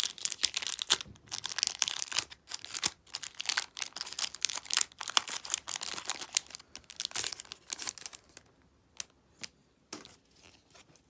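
Pokémon booster pack's foil wrapper crinkling and being torn open, a dense crackle for about eight seconds, then a few light rustles and taps.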